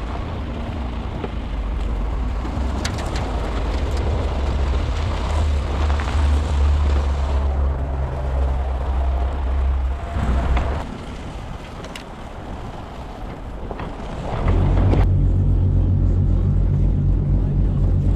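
Truck driving, heard from a camera mounted on its roof: wind buffets the microphone over a low road and engine rumble. The rumble eases off about two-thirds of the way through, then comes back louder near the end.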